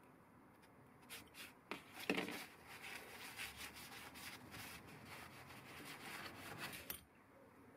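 A cloth rubbing and wiping over a metal block, a dense scratchy rustle broken by small ticks. A few light clicks come about a second in, and a single knock comes just after two seconds.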